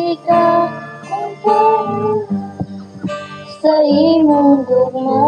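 Live singing by women's voices, with held notes that glide between pitches, over acoustic guitar strumming.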